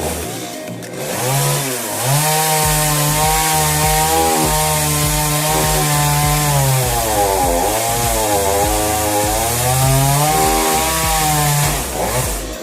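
Two-stroke chainsaw cutting through coconut palm trunk, running at high revs. Its engine note sags several times as the chain bogs in the wood and climbs back each time.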